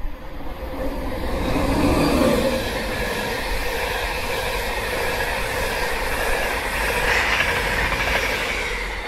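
An LNER InterCity 225 train (Class 91 electric locomotive 91130 with Mk4 coaches and driving van trailer 82225) passes through at speed. The rush of wheels on rail and air builds over the first two seconds and holds steady as the coaches go by, with a little more noise near the end as the locomotive passes.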